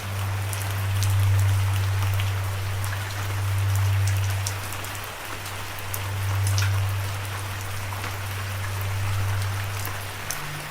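Steady rainfall with distinct single drop hits scattered through it. Under it runs a steady low drone that slowly swells and fades.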